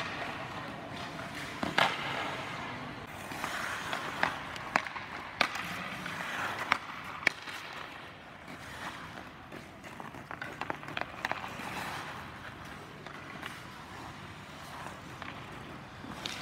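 Ice hockey skates scraping and carving on rink ice, with a string of sharp clacks of sticks striking pucks, most of them in the first half.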